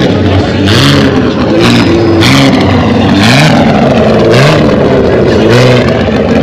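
Car engine revved hard again and again through a loud exhaust, each rev climbing in pitch and dropping back, several in quick succession.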